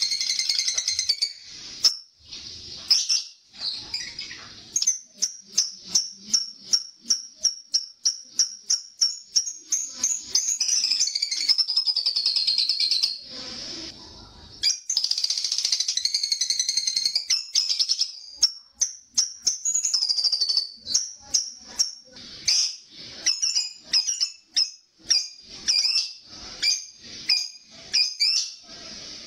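Lovebird ngekek: long, rapid, chattering trills of high-pitched notes, the longest a few seconds each, broken up by many short sharp chirps.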